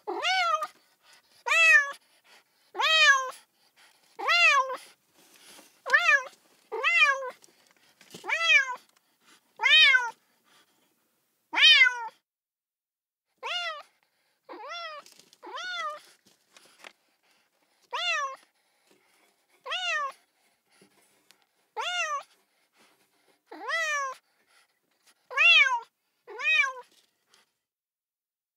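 A kitten meowing over and over, each meow rising and then falling in pitch, about one every one to two seconds. The meows are somewhat quieter after the first half.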